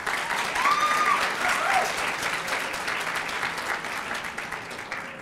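Audience applauding, with a brief cheer about a second in; the clapping fades toward the end.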